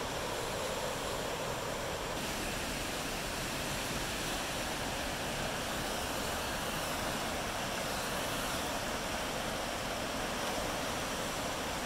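Mark West Creek in flood, its muddy water rushing past in a steady, unbroken rush: the creek swollen by about three inches of atmospheric-river rain in 18 hours.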